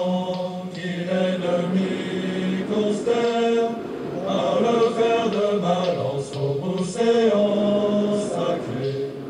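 Background vocal music: voices chanting in held, pitched notes that change about every second.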